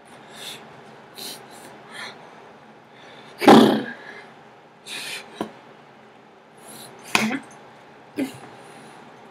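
A person's short breathy puffs and mouth noises, made while signing with his hands. The loudest comes about three and a half seconds in and another about seven seconds in, with a sharp click between them.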